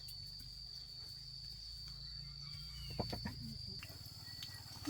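An insect, cricket-like, holding a steady high-pitched tone over a low background hum, with a couple of light knocks about three seconds in.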